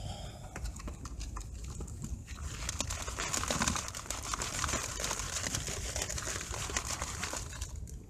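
Gravel and stream-bed dirt rattling and scraping in a green plastic gold-prospecting sieve as it is shaken to sift out the concentrate. There is a dense crackle of small stones that thickens about two seconds in.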